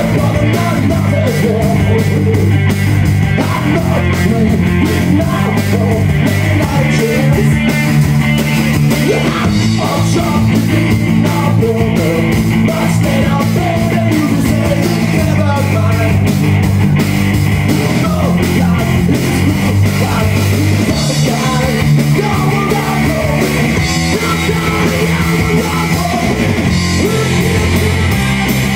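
Live rock band playing: electric guitar, bass guitar and drum kit with a singer at the microphone.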